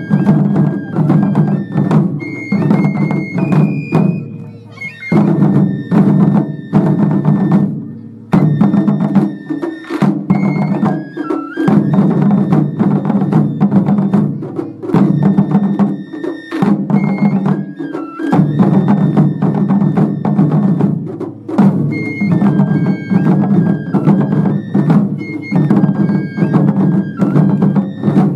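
Wadaiko ensemble of Japanese taiko drums playing rapid, dense rolls of strikes, with brief breaks about four and eight seconds in. A high, held melody line with stepping notes runs over the drumming.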